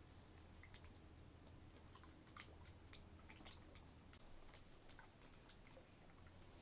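Near-silent motion-camera audio: a steady high electronic whine and low hum, with faint, irregular clicks and ticks scattered through it.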